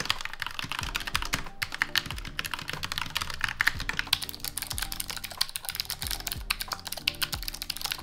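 Fast, continuous typing on mechanical keyboards, a dense run of key clacks: first the Vissles V84 with white PBT keycaps, and later the low-profile Vissles LP85. Soft background music runs underneath.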